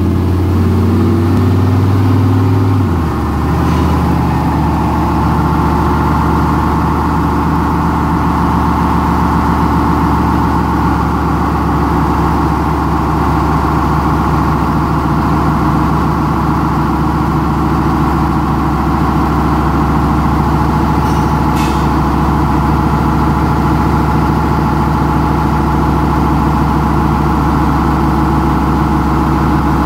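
Turbocharged LS-swapped V8 in a K5 Blazer running steadily on a chassis dyno. Its note changes once about three seconds in, then holds at an even speed.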